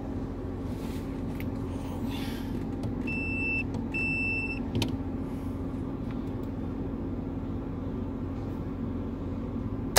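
RV generator running with a steady low hum. Two short high-pitched beeps come about three and four seconds in. A sharp click at the very end is the transfer switch's shore-power contactor releasing.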